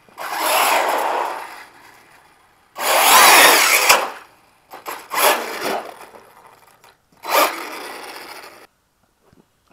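Arrma Talion 6S BLX RC car's brushless motor and drivetrain running in four short throttle bursts, each about a second long with brief gaps, as it drives on concrete.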